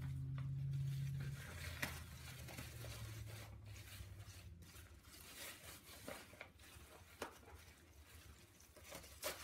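Faint rustling and crinkling of wrapping as small items are unwrapped by hand, with a few light clicks and taps. A low hum is heard during the first second or so.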